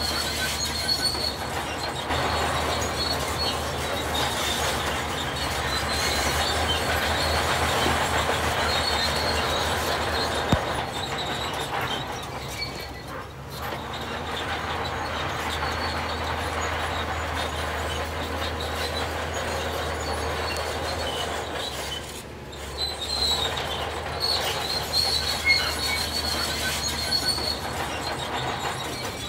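Heavy diesel construction machinery running, with a steady low engine drone and metallic squealing and grinding, dipping briefly twice.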